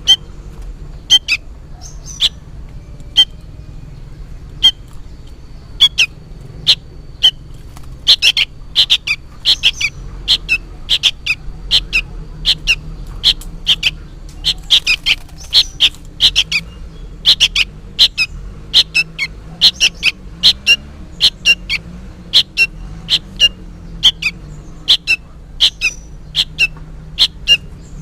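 Young sooty-headed bulbul giving short, sharp, high chirping calls, spaced out at first and then coming rapidly in noisy runs from about eight seconds in, which the uploader takes for the fledgling calling its parent.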